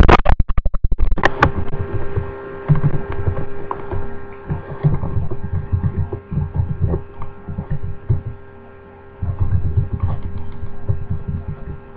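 Loud human burps into a webcam microphone: a rattling burp at the start, then a run of lower burps with a short pause about three-quarters of the way through.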